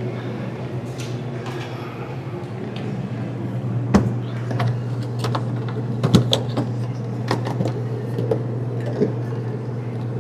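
Scattered knocks and clicks of hands-on work around the car, the loudest about four and six seconds in, over a steady low hum.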